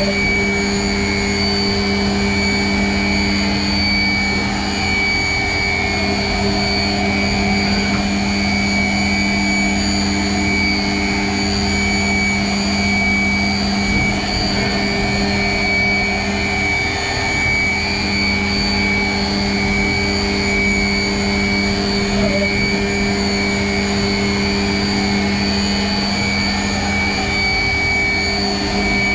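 Mazak FH-4800 horizontal machining center running: a steady low hum and rumble with several constant high-pitched whines from its motors and drives. The low hum dips briefly twice as the spindle head moves.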